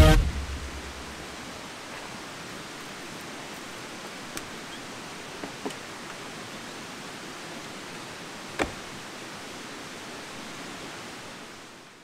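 The tail of background music dies away, leaving steady outdoor background hiss with a few faint clicks and one sharper knock about eight and a half seconds in, fading out at the end.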